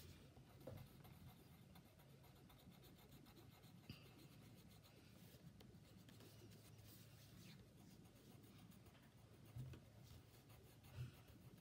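Faint scratching of a coloured pencil shading on paper, with two soft thumps near the end.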